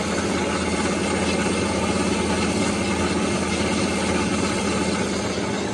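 Horizontal metal-cutting bandsaw running steadily, its blade cutting through a steel plate held in the vice, with a constant motor hum under the noise of the blade in the metal.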